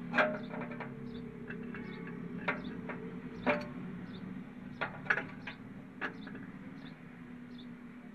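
Irregular light metallic clicks and taps as an engine's rocker arm is worked by hand against its valve stem while the tappet clearance is set, over a steady low hum.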